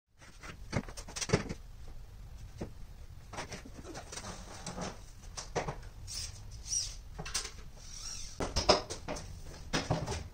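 Scattered knocks, clicks and clunks of hands-on work with PVC duct pipe over a low steady room rumble, with a cluster of louder knocks near the end.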